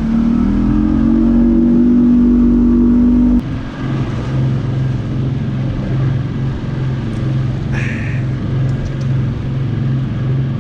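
Boat outboard motor running, its pitch rising a little over the first three seconds. A little over three seconds in the sound changes abruptly to a lower, steady engine drone with an even pulse.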